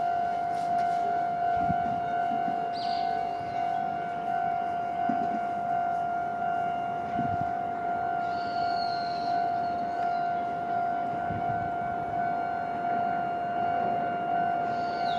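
Japanese level crossing's electronic warning bell (the 'kan kan' alarm) ringing steadily at a single pitch, signalling that a tram is due at the crossing.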